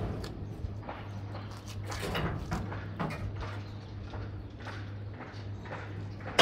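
Broom sweeping a concrete floor in a run of short, irregular brushing strokes, about two a second, over a steady low hum. A single sharp knock comes right at the end.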